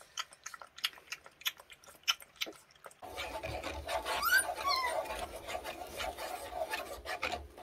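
A Jindo puppy lapping milk from a bowl, a run of quick wet clicks. About three seconds in, a spoon starts stirring milk powder into water, scraping steadily around the bowl, and the puppy gives a couple of short, wavering whines as it waits for the milk.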